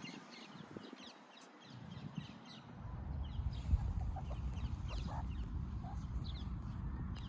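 Meerkat giving a run of short, high, falling chirps, repeated several times a second: the call it makes when it wants to be touched. A low rumble builds under the chirps a few seconds in.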